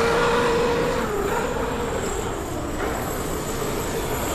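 Traxxas X-Maxx electric RC monster trucks racing, with a high motor whine that slides slowly lower over a steady rush of tyre and track noise.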